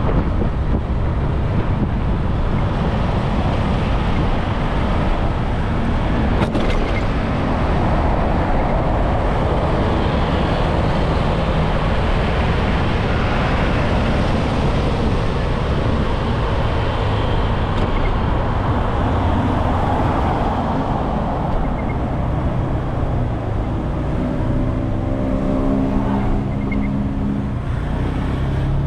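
Riding a motorbike in traffic: steady wind and road rush with the bike's engine running underneath. Near the end the engine's hum stands out more clearly.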